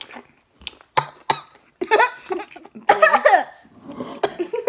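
Young girls coughing several times in sharp bursts, with wordless voiced cries between the coughs, from the burn of spicy Takis Blue Heat rolled tortilla chips.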